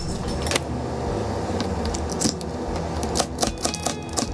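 Knife chopping celery stalks on a cutting board: a run of sharp, uneven knocks that come closer together in the second half.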